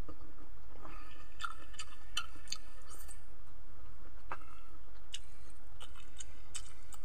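Close-up chewing of boiled vegetables: soft wet mouth clicks and smacks in scattered clusters, over a steady low hum.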